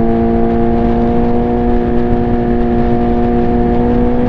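Suzuki GSX-R 600 inline-four engine running at steady, fairly high revs under way, its pitch held level, with wind rush on the microphone.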